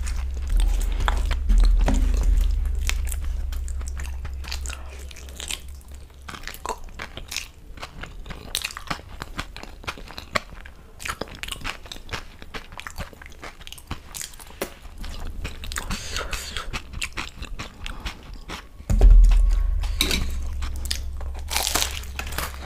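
Close-miked chewing and wet mouth sounds of someone eating dal and rice. A low thump comes partway through, and near the end there is a crunchy bite into a fried samosa.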